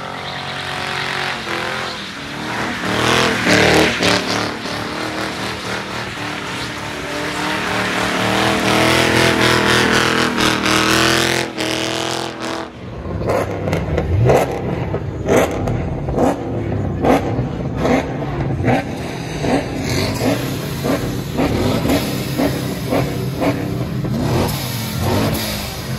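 Car engine held at high revs during a burnout, with the tyres spinning and its pitch rising and falling. About halfway through this gives way to an engine being blipped over and over, roughly one short rev every three-quarters of a second.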